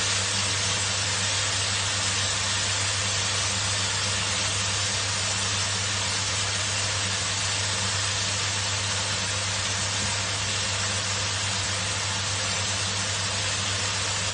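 Chicken pieces sizzling in a hot wok with garlic, onion and ginger, a steady even hiss over a low hum.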